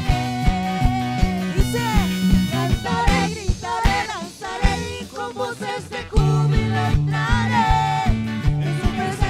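Live worship band music with a steady drum beat, bass and guitar, and a melody line that bends in pitch. About three seconds in the bass drops out and the band thins for a few seconds, then the full band comes back in about six seconds in.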